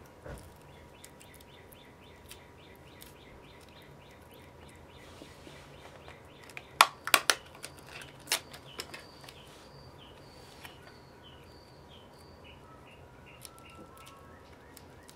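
Packing tape being handled and pulled from its roll. Quiet crinkling is broken by a few sharp cracks and rips of the tape about seven to eight seconds in.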